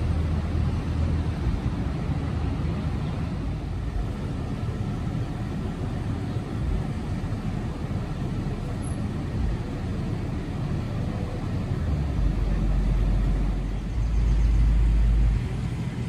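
Steady low rumble of idling fire trucks, with a louder low rumble for about a second and a half near the end.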